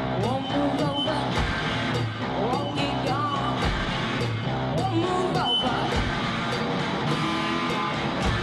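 Live rock music from a guitar-and-drum-machine duo: electric guitar with bending, sliding notes over a steady beat.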